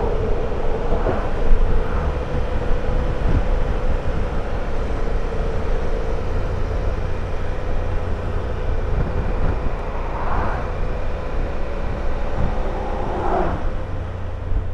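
Motorcycle riding at a steady speed: the engine runs at an even pitch under a heavy, constant wind rumble on the microphone, easing off a little near the end.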